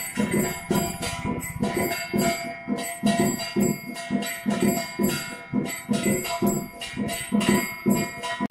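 Puja bells ringing with drum beats in a steady rhythm of about two to three strokes a second, the bells' ringing tones held between the strikes.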